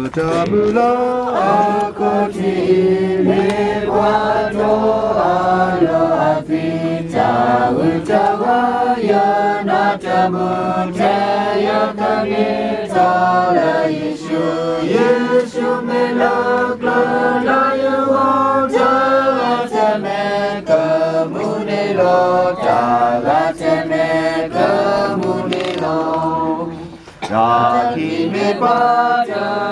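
A group of voices singing together in unison, a melody of held notes, breaking off briefly near the end before starting again.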